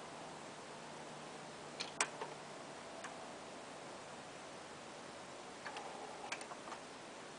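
Light clicks and ticks over a faint steady hiss: a short cluster about two seconds in, a single tick a second later, and another cluster of several clicks near the end.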